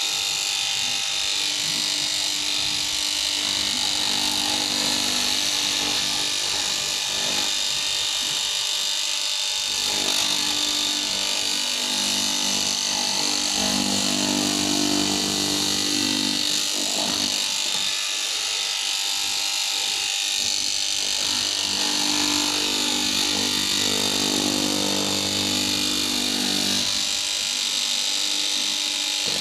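Electric fabric-cutting machine running steadily as it cuts canvas, a continuous high-pitched motor whine and hiss. A lower hum swells in for several seconds about ten seconds in, and again for several seconds later on.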